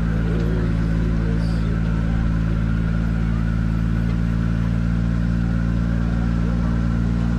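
A vehicle engine running steadily at an even, unchanging pitch.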